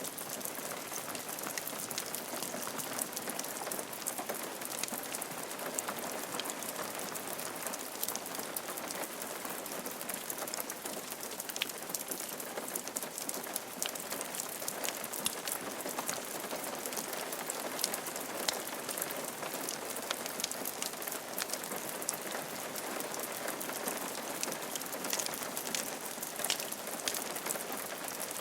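Steady rain falling on a roof, with countless separate drops ticking against it.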